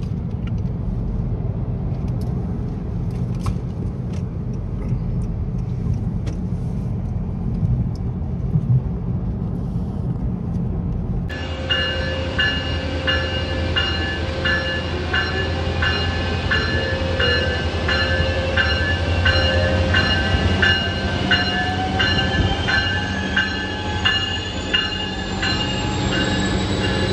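A low steady rumble with a few clicks. Then a Siemens Charger SC-44 diesel-electric locomotive pulls out, its bell ringing about twice a second, and a whine climbs steadily in pitch as it accelerates.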